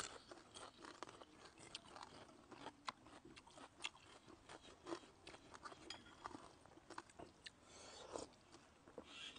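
Two people chewing and crunching raw vegetables and rice close to clip-on microphones: a faint, irregular run of small crisp crunches and mouth sounds.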